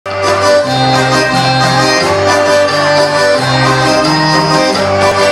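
Live band playing an instrumental passage: a sustained reedy melody over a moving bass line and drums, with no vocals.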